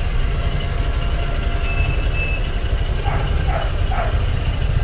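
A small motorcycle running at low speed with a steady low rumble, with brief high-pitched squeals about two and three seconds in.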